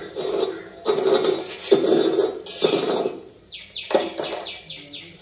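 Metal ladle scraping and clinking against a steel plate heaped with charcoal embers, in several separate strokes.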